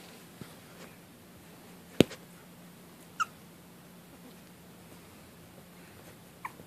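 Puppies at play: a sharp click about two seconds in, then a puppy's short high squeak a second later, and another brief, fainter squeak near the end; otherwise quiet.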